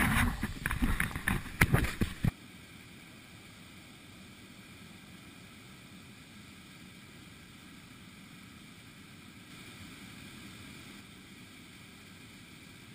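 Kayak paddle strokes splashing in water for about two seconds, cut off abruptly. Then a faint, steady wash of water and outdoor air.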